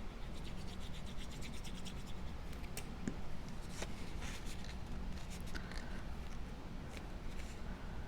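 Cardstock pieces being handled and pressed into place by hand: soft paper rubbing and scratching with scattered small ticks.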